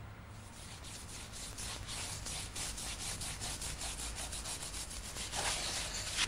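Washi paper being brushed and rubbed down onto a lacquered tray: quick, dry, scratchy strokes, about four or five a second, loudest near the end.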